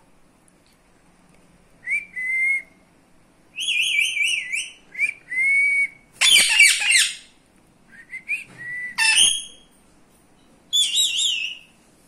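Indian ringneck parakeets calling: a string of short whistled calls with wavering, up-and-down pitch, broken by a louder, harsher screech about six seconds in.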